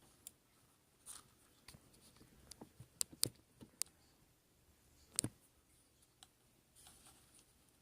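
Scattered light clicks and taps of small metal lock parts (pins, springs and tools) being handled while the lock is taken apart, a dozen or so irregular ticks with the sharpest about 3 seconds and 5 seconds in.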